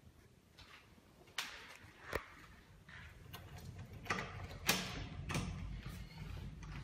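A handful of light, irregular clicks and knocks, the loudest about a second and a half in and two seconds in, over a faint low hum.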